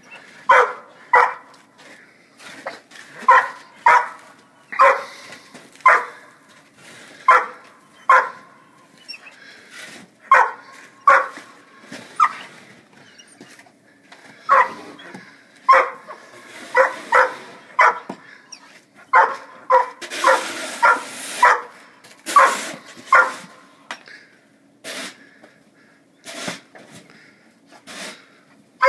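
German shorthaired pointer barking repeatedly, sharp barks often in pairs about a second apart, with a brief rush of noise about two-thirds of the way through; the barks thin out near the end.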